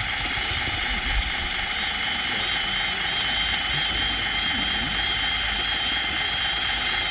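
Hydraulic pump of a scale RC model tractor tipping a dump trailer, with a steady high whine that wavers slightly as the bed rises.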